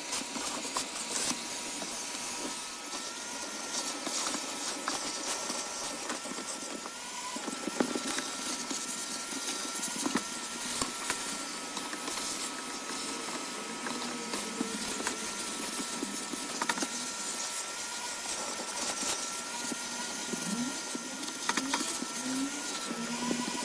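Vacuum cleaner running steadily, its motor whine wavering slightly in pitch as the suction changes, over a hiss of rushing air, with a few sharp clicks along the way.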